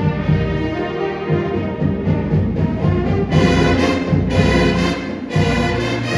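Band music led by brass, with sustained chords over drums and timpani, swelling fuller a little past halfway.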